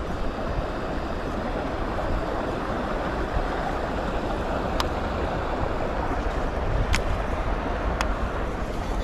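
Strong wind buffeting the microphone: a steady rushing noise with a heavy low rumble. Three short sharp clicks in the second half.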